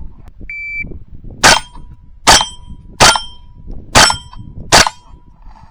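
A shot timer beeps once, then five .22 rimfire shots, roughly a second apart, each followed by the ring of a steel target being hit.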